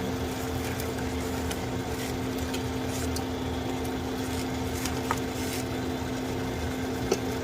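Tomato sauce boiling rapidly in a pan, with faint scattered pops, over a steady low hum. Two light clicks come about five and seven seconds in.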